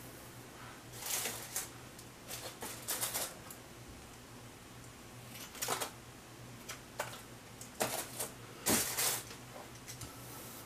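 Irregular short, crisp snips and rustles of wet hair being cut with scissors and combed through, a dozen or so in small clusters, the loudest about nine seconds in.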